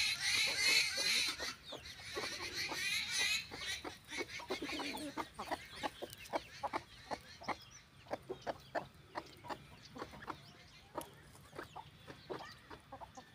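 Chickens calling: a dense chorus of high chirps for the first three seconds or so, then a hen's short clucks repeated about two or three times a second, growing fainter.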